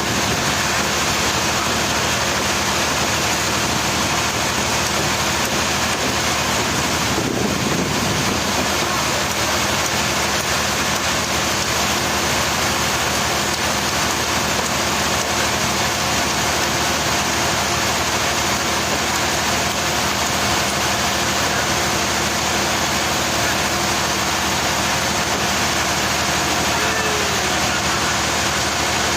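Sawmill machinery running steadily: a loud, even mechanical noise with a constant low hum that does not change.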